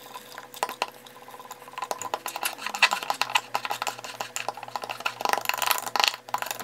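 A metal spoon stirring sourdough starter being fed with flour and water in a glass jar, scraping and clicking against the glass in quick, uneven strokes as the flour lumps are worked out.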